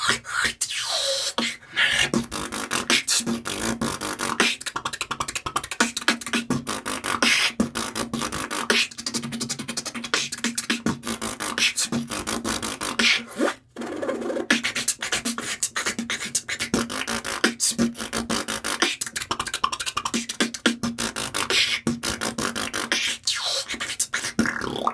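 A man beatboxing: a fast, dense stream of percussive mouth sounds that breaks off briefly about halfway through, then resumes.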